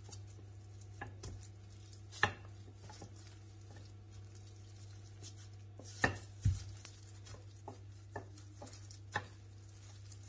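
Wooden rolling pin rolling a ball of bread dough out on a granite countertop, with a few sharp knocks of wood on stone, the loudest about two and six seconds in. A steady low hum runs underneath.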